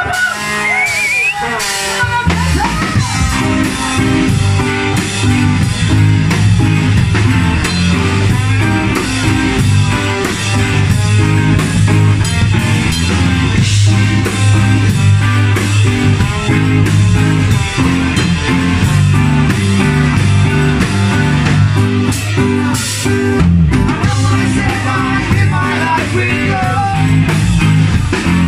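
Ska-punk band playing live in a small club, with drums, bass and guitars under a sung vocal. A voice with sparse accompaniment opens, and the full band comes in about two seconds in.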